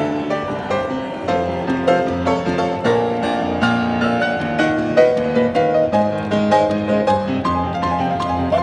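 Grand piano played live, a continuous run of notes and chords.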